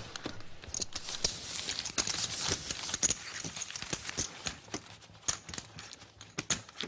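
Poker chips clicking against one another at the table: a rapid, irregular series of sharp clicks over a faint low hum.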